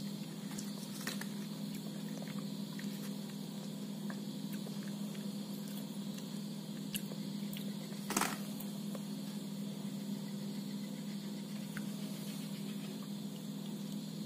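Faint handling noises: scattered small clicks and taps from a chocolate bar and its cardboard box being moved about by hand, with one louder tap about eight seconds in, over a steady low hum.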